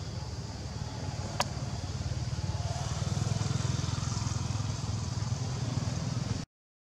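A motorcycle engine running nearby, a steady low pulsing rumble that grows louder about halfway through, with one sharp click a little over a second in. The sound cuts out abruptly just before the end.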